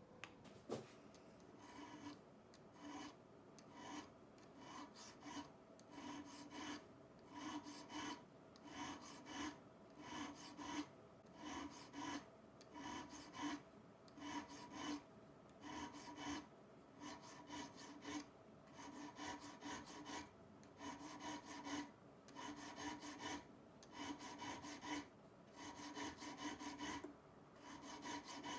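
A steel shoemaker's edge iron being abraded by hand to clean it up, in even rasping strokes of about one a second. A single sharp click comes less than a second in.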